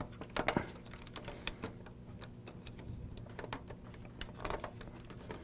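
Scattered light clicks and taps of hands fitting a 120 mm BitFenix Spectre Pro case fan to a PC chassis, pulling its silicone anti-vibration mounting pins through the screw holes.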